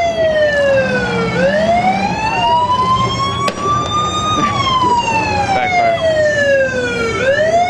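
Siren in a slow wail, its pitch sliding down and back up over about six seconds: it bottoms out a second in, climbs, falls again, and starts rising once more near the end. Engines rumble underneath.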